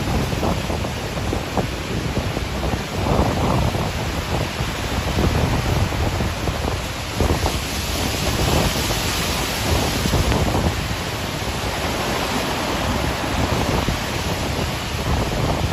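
Strong cyclone wind gusting hard on the microphone over rough sea surf, with waves breaking and surging close by.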